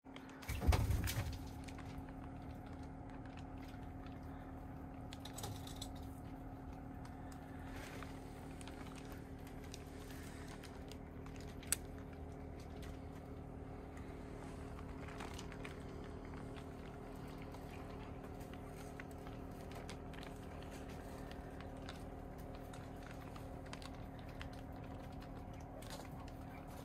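Steady low hum with faint scattered clicks, a dull thump about a second in and a single sharp click about twelve seconds in.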